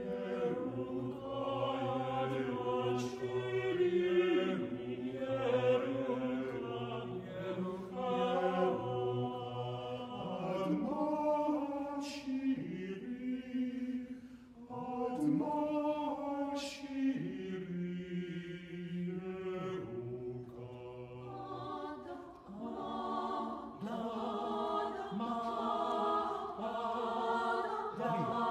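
A cappella choir singing sustained chords in several parts, with a low bass line underneath and a few sharp consonants cutting through. The voices enter together right at the start after a silence.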